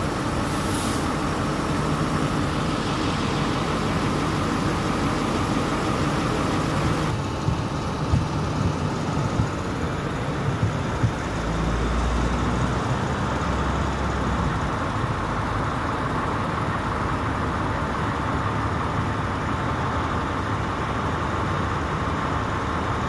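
Large vehicle engines idling with street traffic noise, a steady running sound throughout. The sound changes abruptly about seven seconds in, and a deeper low engine sound swells briefly around the middle.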